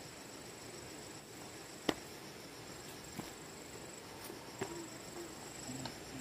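Insects chirring steadily in a high, finely pulsing tone, with a sharp click about two seconds in and two fainter clicks later.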